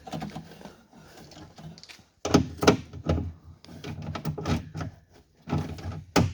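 A scatter of sharp knocks and thunks, about half a dozen in the second half, from handling around a pickup truck's rear door.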